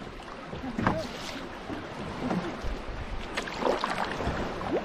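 Canoe paddling: paddle strokes dipping and pulling through the water about every second and a half, with water gurgling around the blade and hull over a steady background hiss.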